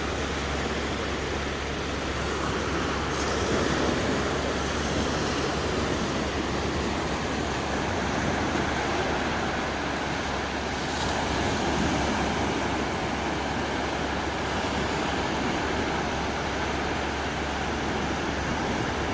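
Calm sea waves washing onto a sandy beach with a steady wind, the wash swelling and easing a little a few times.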